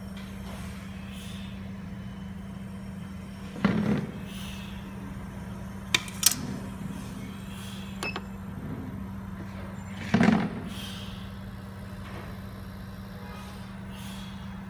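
Home oxygen concentrator running: a steady low compressor hum, with two short loud rushes of air about six seconds apart, typical of the machine venting as its sieve beds switch, and a pair of sharp clicks between them.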